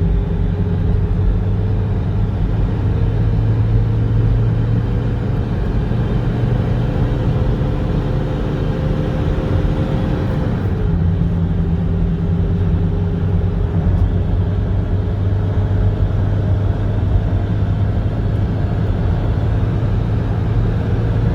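Toyota Innova D4D diesel engine running with the loud, truck-like roar of its viscous clutch fan, which is overfilled with silicone fluid. The pitch creeps slightly higher, then drops about ten seconds in.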